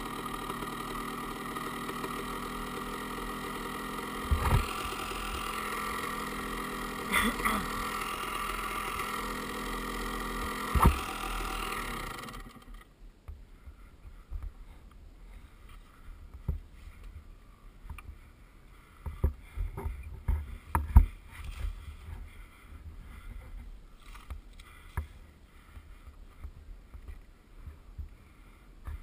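Enduro motorcycle engine idling steadily, with a few sharp knocks, then cutting off suddenly about twelve seconds in. After that only scattered light knocks and low bumps are left.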